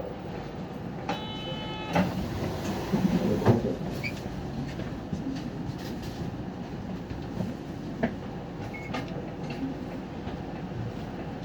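Inside a city bus standing at a stop: the diesel engine idles steadily with a low rumble. About a second in, a short electronic beep sounds, followed by a few light knocks and clunks.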